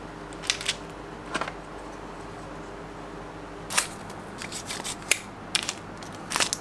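Hands handling a collectible action figure and its hard plastic parts: scattered small clicks and taps, a few in the first seconds and busier after about four seconds. A faint steady hum runs underneath.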